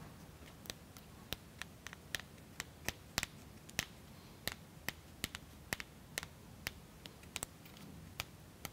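Light, irregular clicks and taps of small laser-cut plywood model parts being handled and pressed together, about two or three a second, as little wooden washers are fitted onto a gear pin.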